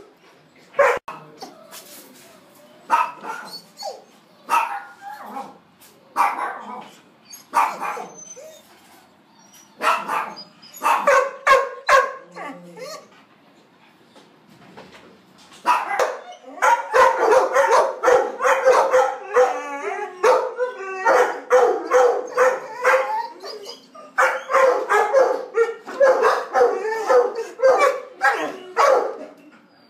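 Dog barking: scattered single barks and short runs in the first half, then rapid, nearly continuous barking from about halfway through.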